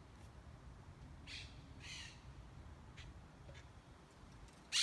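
Birds calling faintly: a few short, harsh calls, with a brief, louder, sharp sound near the end.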